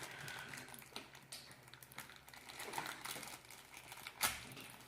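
Faint crinkling and small clicks of plastic toy wrappers and pieces being handled, with one louder tap about four seconds in.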